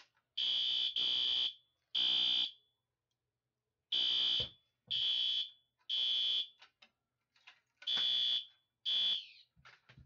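System Sensor SpectrAlert Advance P2R fire alarm horn sounding its temporal-3 evacuation pattern on its lowest volume setting: three half-second high-pitched blasts, a pause, then the pattern again. The last blast drops in pitch as it cuts off near the end.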